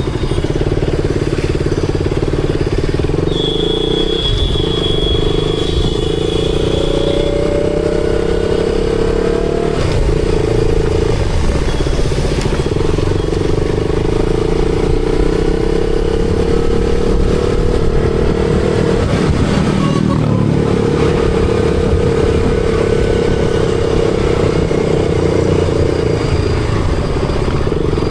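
KTM Duke 200's single-cylinder engine running under way, its note dipping and picking up again several times as it shifts gear. A thin, high steady tone sounds for a few seconds from about three seconds in.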